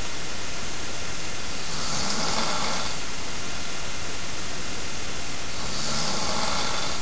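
A man snoring in his sleep: two raspy, breathy snores about four seconds apart, over a steady hiss.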